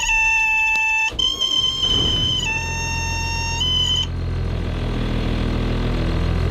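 A trawler's diesel engine starting and settling into a steady low idle. Over it, a loud high electronic tone steps in pitch a few times and cuts off about four seconds in.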